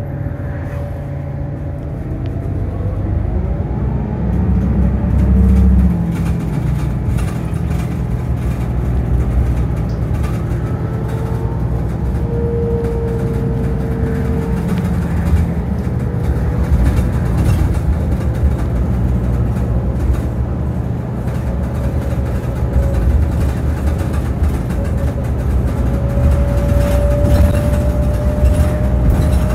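Interior of a moving 2009 New Flyer DE60LFR diesel-electric hybrid articulated bus, with a Cummins ISL engine and Allison EP50 hybrid drive. The engine and road noise make a steady low rumble, while a whine from the drive glides down and up in pitch as the bus slows and picks up speed, rising near the end.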